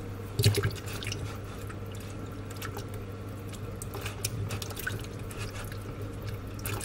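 Water splashing and dripping as hands rub and rinse raw chicken pieces in a plastic bowl of water, with a louder splash about half a second in. A steady low hum runs underneath.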